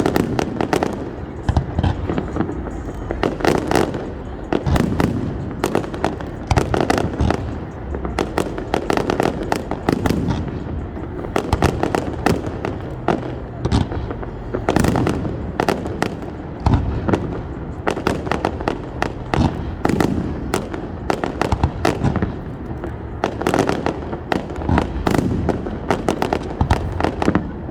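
Fireworks going off in rapid succession: a continuous run of sharp bangs and crackles, many overlapping.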